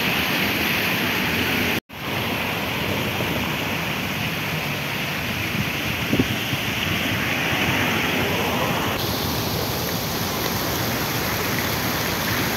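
Steady outdoor rushing noise with no clear single source, broken by a brief dropout to silence about two seconds in.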